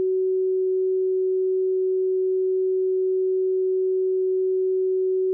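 Steady, unbroken beat tone from an Icom IC-7300 receiving the 10 MHz WWV time-station carrier in CW mode: a single low, pure whistle over faint hiss, used as the reference for calibrating the radio's oscillator.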